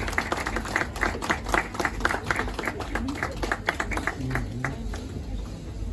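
Applause from a few people, hands clapping about four times a second, dying away after about four and a half seconds.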